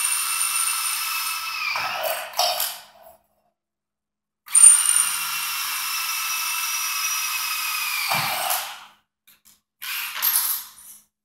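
Handheld power drill boring holes through a metal adaptor plate: the motor's steady whine with the bit cutting, in two runs of a few seconds each with a short stop between, the pitch dropping as each run ends, then a brief burst near the end.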